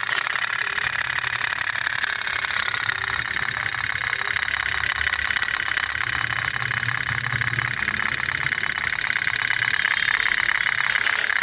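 Homemade candle-heated pop-pop steam boat engine putting in a fast, steady rhythm as the boat runs on the water.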